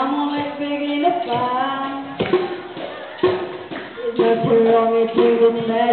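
Live school-band music: a melody of steady held notes that step from pitch to pitch, with sharp percussive hits about once a second.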